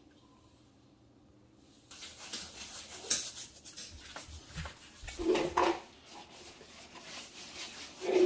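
Hands rubbing coarse salt into the skin of a raw suckling pig on an aluminium sheet pan: gritty scrubbing strokes that start about two seconds in, with a few louder strokes along the way.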